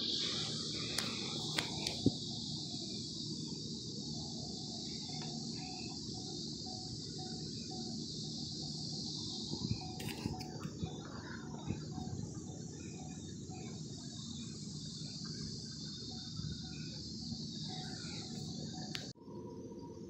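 Steady high hiss over a low rumble, with a few sharp clicks and knocks from handling, a cluster about a second or two in and more around ten seconds in. The sound cuts off abruptly near the end.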